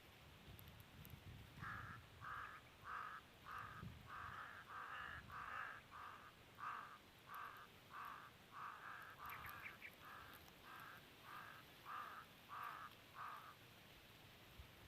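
A bird giving a long series of faint, harsh, caw-like calls, about one and a half a second, starting a second or two in and stopping near the end.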